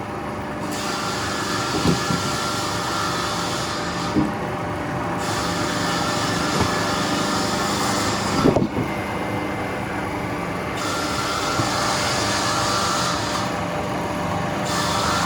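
Veneer peeling machinery in a wood-processing factory running steadily with a constant hum, with a few sharp knocks, the loudest a little past the middle.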